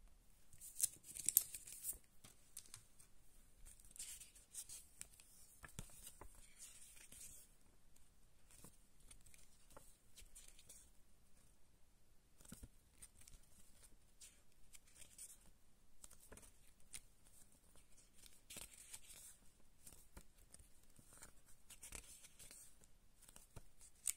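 Quiet handling of a CD: the clear plastic wrap on the jewel case crinkling and tearing off, loudest about a second in. Then scattered light clicks and paper rustles as the lyric booklet's pages are turned.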